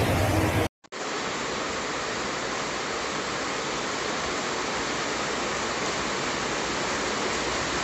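Steady hiss of heavy rain and rushing floodwater, resuming after a brief silent cut just under a second in. Before the cut the same water noise carries a low rumble.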